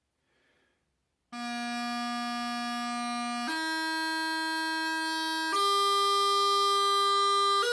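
Highland bagpipe practice chanter playing a slow exercise line, one sustained note at a time. After a short silence it holds low A, D, F and then high A, each for about two seconds, stepping upward in pitch.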